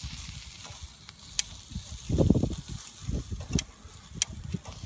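Marinated meat sizzling on a wire-mesh grill over charcoal, with steel tongs clicking sharply against the mesh several times as the pieces are turned. A louder low rumble comes about two seconds in.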